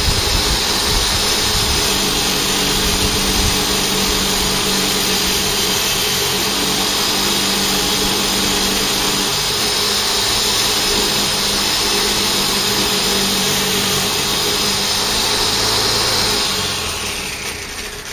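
Electric polishing machine running steadily as a Lee Enfield bolt part is buffed on it, then winding down near the end.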